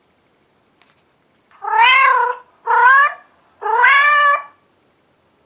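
Three cat meows played back by a cat-translator app through a phone's speaker, each between about half a second and a second long, with short gaps between them.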